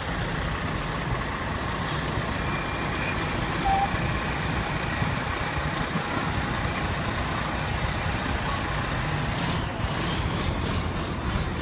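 An FDNY aerial ladder truck's diesel engine running steadily close by, with a short hiss about two seconds in.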